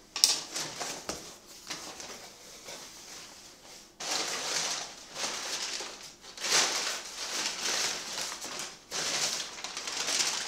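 Crumpled brown kraft packing paper rustling and crinkling in repeated bursts as it is pulled out of a cardboard box, after a sharp knock just after the start.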